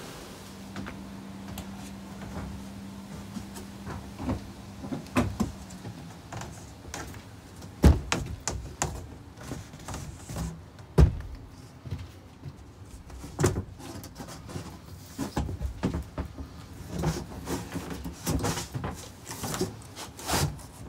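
Sheets of plywood subflooring being handled and laid onto an RV floor: irregular wooden knocks, bumps and scrapes, the sharpest about 8 and 11 seconds in. A steady low hum runs under the first few seconds.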